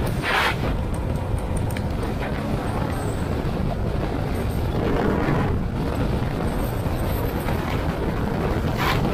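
Steady rumble and road noise of a moving vehicle on a ride, with a few brief louder rushes.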